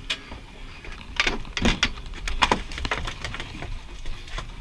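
A handful of irregular knocks and clatters, about six, some close together, over a low steady background.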